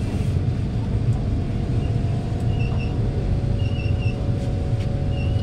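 Interior running noise of a Kawasaki Heavy Industries C151 metro train car: a steady low rumble with a faint steady whine. A few short high beeps come in the second half.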